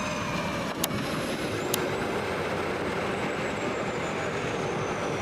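Twin jet engines of an F/A-18E Super Hornet running as the jet rolls along the runway with its tailhook lowered: a steady noise with a high turbine whine that slowly falls in pitch. Two sharp clicks about a second apart near the start.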